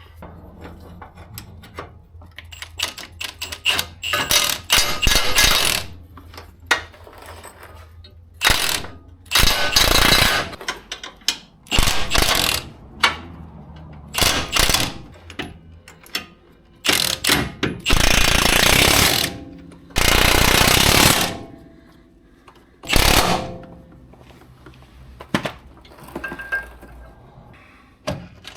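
Cordless impact wrench hammering bolts down in repeated bursts of one to two seconds, with short pauses between, as the suspension frame-bracket bolts are run in before torquing.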